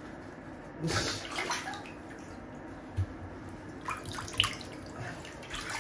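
Water splashing and sloshing in a bathtub as hands and a small puppy move in shallow bathwater during a wash. The splashes come about a second in and again around four seconds, over a steady low hum.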